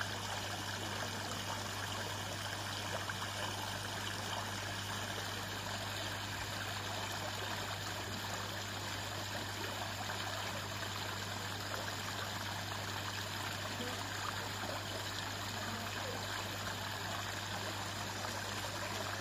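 Water running steadily down a small stepped stone waterfall into a garden koi pond, a constant splashing trickle with a steady low hum underneath.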